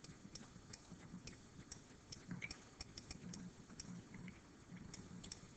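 Faint, irregular light clicks and taps of a stylus writing on a digital pen surface, over quiet room tone.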